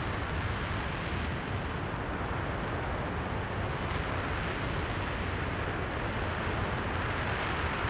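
RS-25 liquid-hydrogen rocket engine in a hot-fire test, a steady, unbroken rush of noise with no let-up.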